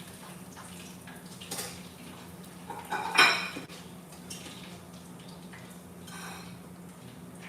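Dishes and cutlery clinking: a few light taps, then one loud clank that rings on briefly about three seconds in, and a fainter ringing touch near six seconds, over a steady low hum.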